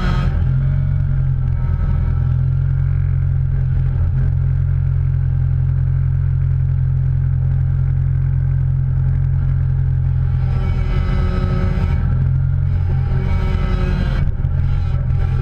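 Car driving: a steady low engine and road rumble, with a fainter wavering higher tone joining about ten seconds in.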